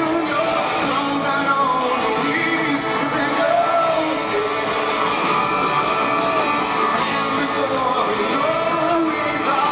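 Live rock band playing, with electric guitars and a man singing over them, heard from the crowd just below the stage.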